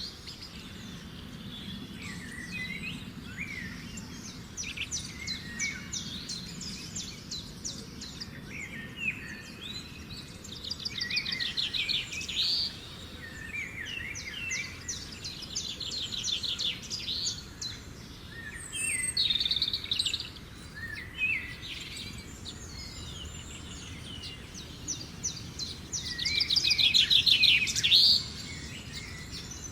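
Weaver birds chattering: short chirps and bursts of fast, buzzy ticking trills that come again every few seconds, with the longest and loudest burst near the end. A low steady background hum runs underneath.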